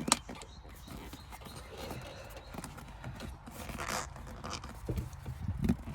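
Rustling, scuffing and tapping of a Clazzio seat-cover piece being tucked and straightened over a truck headrest, with a sharp click just after the start and a few light knocks near the end.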